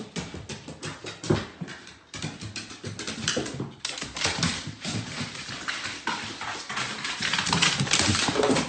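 A pet's paws and claws clicking and tapping on hardwood stairs, an uneven run of quick steps as it climbs down.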